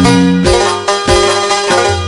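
Instrumental break in a Nepali deuda folk song: a melody played over a steady beat, with no singing.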